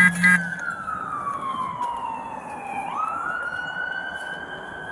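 Emergency vehicle siren wailing: its pitch falls slowly for about three seconds, then sweeps quickly back up and holds. A short knock comes right at the start.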